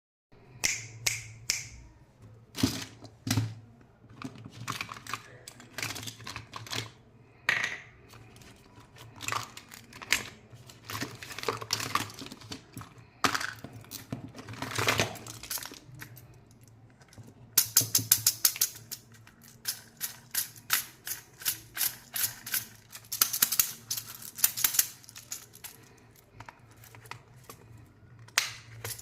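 Close-up handling of candy packaging: crinkling plastic wrappers and sharp clicks of small hard candies and containers. There are fast clattering runs, like candies rattling, about two-thirds of the way through and again near the end.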